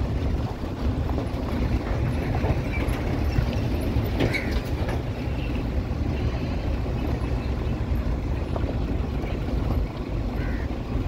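A car driving over a rough unpaved gravel road: a steady low rumble of tyres and running gear on loose stones, with a few small ticks about four to five seconds in.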